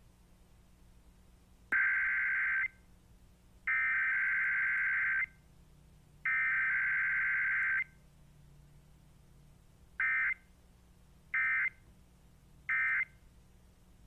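Emergency Alert System SAME digital data tones from a Required Weekly Test. Three header bursts of about a second or more each begin about two seconds in. Three short end-of-message bursts follow near the end.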